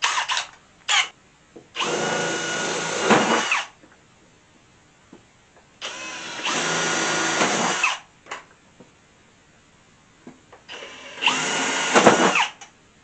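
Power drill running in three separate bursts of about two seconds each, its motor whine bending in pitch as it spins up and winds down, drilling holes for bolts. A few short knocks come just before the first burst.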